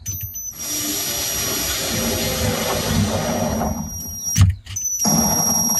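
Craftsman cordless drill driving a screw into a wooden shelf board: the motor whines steadily for about four seconds, stops with a sharp knock, then runs again briefly near the end.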